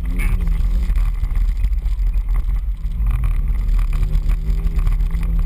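Off-road 4x4's engine running under load on a dirt trail, a heavy low rumble whose pitch rises and falls as the throttle changes.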